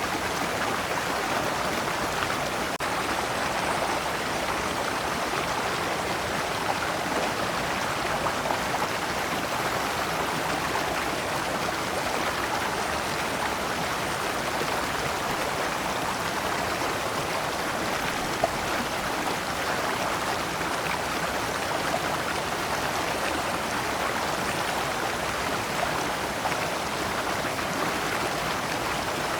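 Shallow stream flowing over rocks in small cascades: a steady rush and splash of water.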